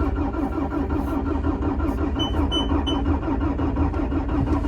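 Bobcat T650 skid steer's diesel engine being cranked over by the starter with a steady rhythmic chug and not catching. The owner puts the trouble down to air in the fuel line after a filter change, and the machine's display reports battery voltage too low.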